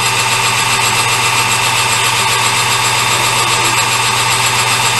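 Small metal lathe running steadily with its chuck spinning: a steady hum with a high whine over it from the motor and gearing, as a light cut is taken off the end of the part.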